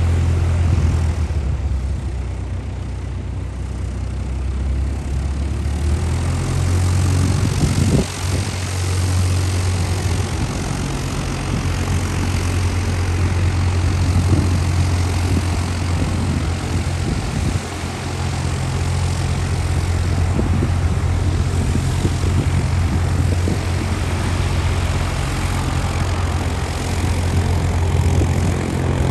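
Light single-engine propeller aircraft taxiing, its piston engine running steadily at low taxi power with a low, even hum.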